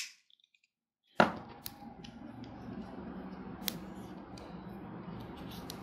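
Plastic clicks from a MeFoto smartphone tripod being handled: one sharp click about a second in, then a few faint clicks over low steady room noise.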